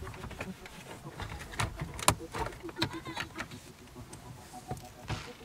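Irregular plastic clicks, knocks and rubbing as an aftermarket 9-inch Android head unit is handled and pressed into a car's dashboard opening, with its cables tucked in behind it.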